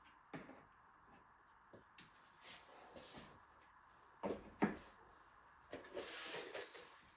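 Light handling sounds: scattered soft knocks, clicks and rustling, with two louder knocks close together about four and a half seconds in.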